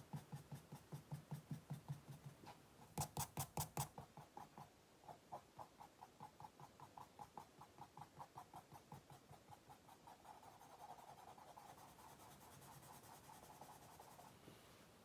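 White pencil scratching on brown paper in quick, short strokes, about five a second, louder for a moment about three seconds in. Near the end it changes to a steadier rubbing stroke.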